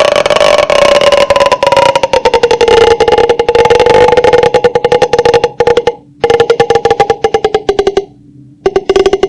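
Loud creature call sound effect: a fast, rattling pulsed call whose pitch sinks slowly. It breaks off about six seconds in, resumes, then ends with a short burst near the end.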